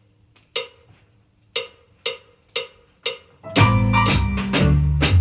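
A count-in of sharp clicks about two a second, then a little past halfway a swing backing track comes in with bass and piano, and a drum kit played with brushes on the snare joins it.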